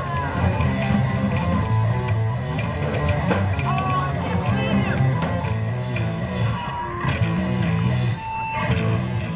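A rock trio playing live: electric guitar and electric bass over a Gretsch drum kit, with guitar lines bending in pitch near the start.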